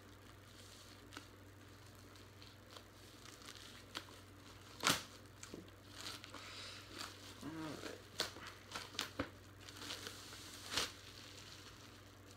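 Box-set packaging being opened and handled: intermittent crinkling and tearing of wrapping, with scattered sharp rustles, the loudest about five seconds in and again near eleven seconds.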